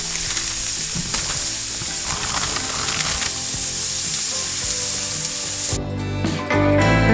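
Ground-beef smash burger patties sizzling steadily in olive oil on a hot griddle. About six seconds in, the sizzling stops and guitar music takes over.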